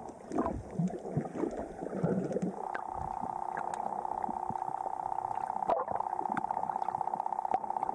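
Underwater camera audio: irregular muffled water sounds, then about two and a half seconds in a steady hum with a fast pulse takes over.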